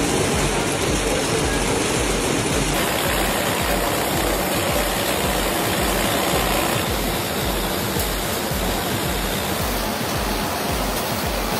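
Match-making machinery running: a dense clatter and rattle of matchsticks and metal parts, with a regular low thump about three times a second.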